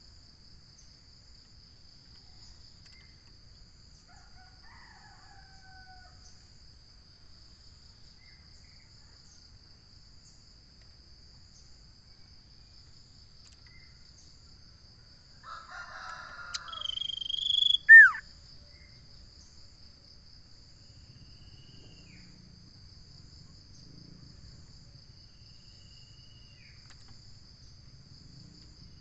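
A steady, high insect trill runs throughout, with a few faint bird whistles. About halfway through, one loud call swells over two seconds and ends in a clear high note and a sharp falling whistle.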